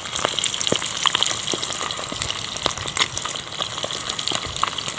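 Eggs frying in hot oil in a small steel pot over a wood fire: a steady sizzle with frequent small pops and crackles.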